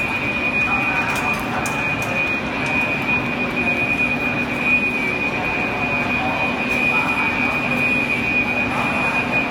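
Fire engines running steadily with a loud drone, with a continuous high-pitched tone over it and faint voices.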